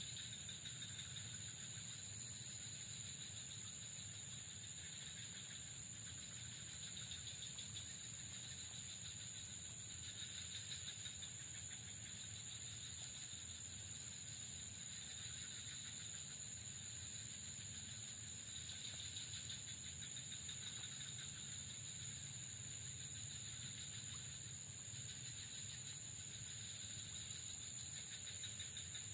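Steady outdoor ambience of a high, even insect chorus, with a finer pulsing buzz just below it and a faint low rumble underneath.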